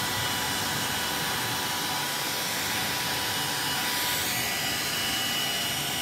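Braun hand-held hair dryer running steadily, a continuous rush of air over its motor hum; its sound turns a little brighter about four seconds in as the dryer is moved.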